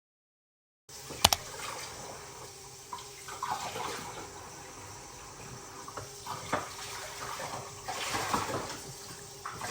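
A sharp click about a second in, then running water with a few scattered knocks.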